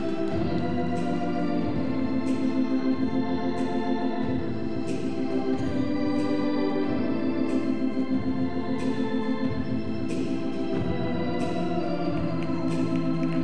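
Foxtrot dance music played on an organ, with sustained chords over a steady beat.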